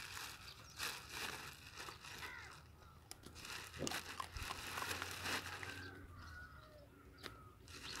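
Faint, scattered crunches and rustles of a stray puppy nosing and chewing at scraps in dry grass, with a few faint bird chirps behind.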